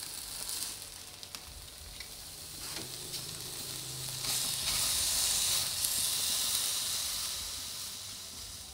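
Glazed tofu satay skewers sizzling as they grill on an oiled metal rice-cooker steamer strainer, with a few light clicks. The sizzle grows louder about four seconds in, then eases off near the end.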